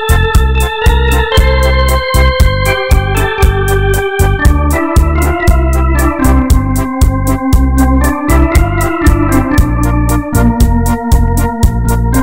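Yamaha PSR-E473 keyboard's Jazz Organ voice playing a held, legato melody over a steady beat from the keyboard's accompaniment.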